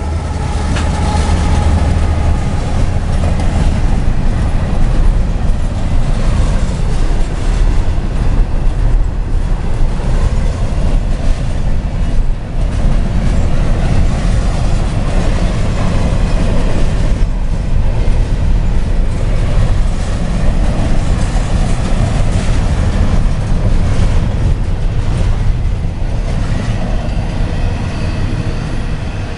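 CSX freight train rolling past close by: a steady, loud rumble of steel wheels on the rails with clatter over the joints. It eases slightly near the end.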